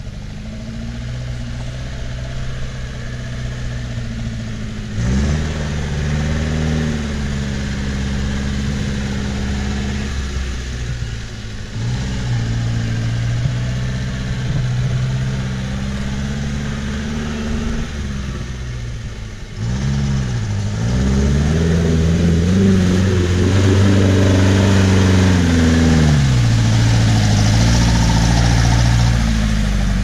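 UAZ Hunter engine pulling hard in low gear through deep mud. Its pitch rises in three surges, about five, twelve and twenty seconds in, and it gets louder toward the end as the vehicle draws close.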